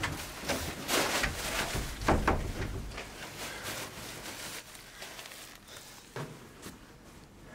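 A black plastic bag rustling and hurried footsteps as a man rushes in carrying it, with a thump about two seconds in. The sound fades after about three seconds, with two light knocks near the end.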